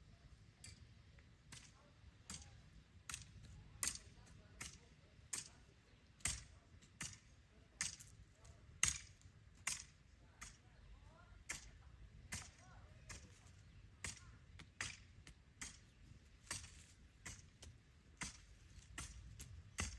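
Repeated sharp strikes or knocks, about one or two a second at an uneven pace, over a faint low background rumble.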